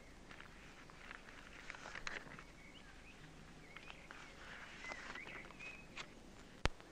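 Faint outdoor ambience with scattered short bird chirps, and a single sharp click near the end.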